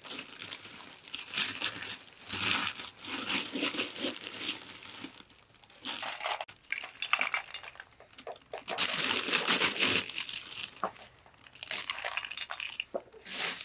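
Irregular bursts of rustling and crinkling that come and go every second or so.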